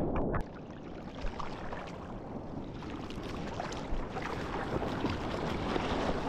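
Wind buffeting the microphone over splashing water: a steady rush with frequent crackling splashes, dropping in level about half a second in.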